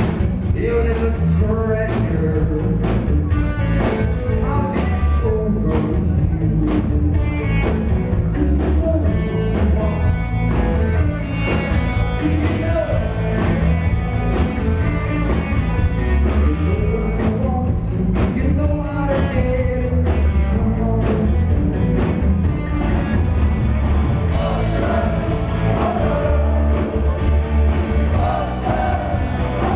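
Rock band playing live: a male singer over electric guitars, bass and a steady drum beat, with a heavy bass end.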